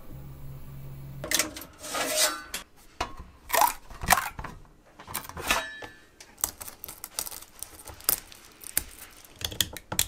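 A 3D printer hums steadily for about a second. Then comes an irregular run of sharp plastic clicks and snaps as a freshly printed white PETG part is worked by hand with small pliers.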